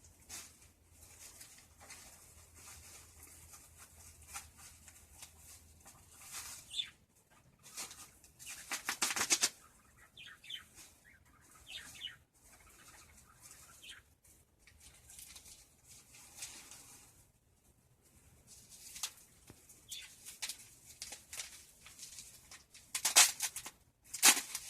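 Wrapping being handled and pulled off a packed doll: irregular rustling and crinkling, with louder bursts of rustle about a third of the way in and again near the end.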